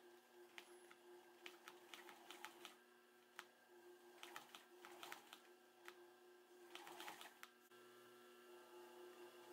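Sewing machine stitching slowly, its needle and mechanism clicking faintly in short runs of stitches over a steady motor hum.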